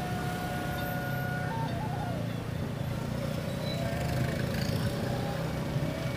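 Motorcycle on the move: steady engine and wind noise, with a faint wavering high tone through it.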